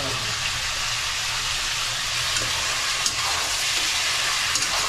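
Chunks of meat sizzling steadily as they fry in a pan, stirred with a steel ladle, with a few light clicks of the ladle against the pan about three seconds in and near the end.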